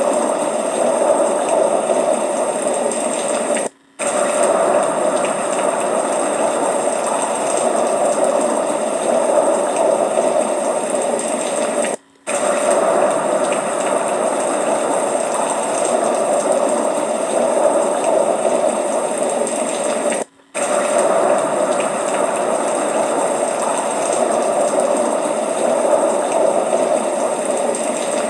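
Steady rushing of water, as from floodwater, cut by brief drop-outs about every eight seconds.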